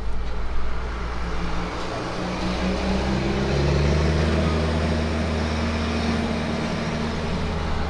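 Magic Kingdom parking tram running slowly through a U-turn: a steady engine hum over road noise, the engine note stepping up about three seconds in.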